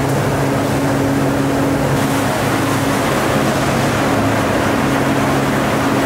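Milking-parlour machinery running: a steady low mechanical hum over a constant hiss.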